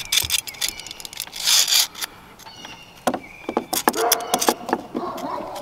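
Metal clicks and rattles of a chainsaw file guide being put back together, the round file shoved into its steel frame, with a short scraping rush about one and a half seconds in.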